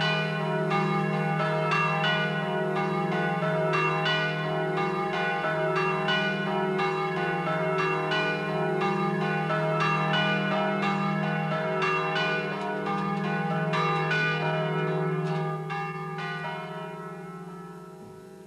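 Church bells pealing: many overlapping strikes that ring on over a steady low hum, fading away over the last few seconds.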